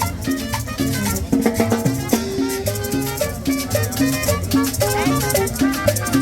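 Latin tropical dance music with maracas and drums, playing at a steady beat.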